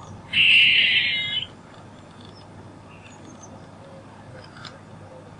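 An animal call: one loud, high-pitched call lasting about a second, starting just after the opening, then only a quiet steady background.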